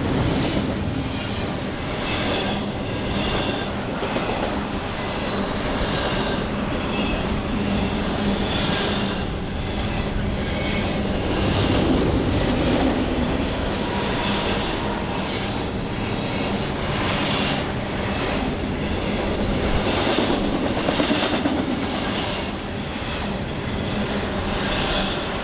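Double-stack intermodal freight cars rolling past as the train coasts downgrade: a steady rumble of steel wheels on rail, with clicking in an even rhythm as the trucks pass over the rails.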